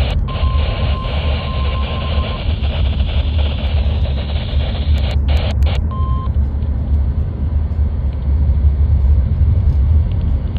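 NOAA Weather Radio receiver audio with heavy static hiss and a strong low hum, carrying a faint steady tone for the first couple of seconds. There are brief dropouts around five seconds in.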